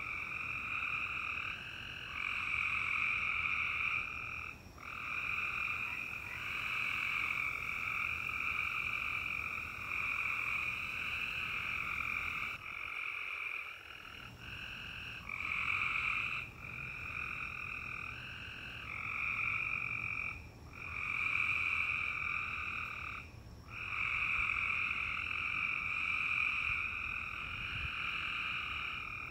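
A dense, steady chorus of animal calls in two high, even bands, dropping out briefly every few seconds.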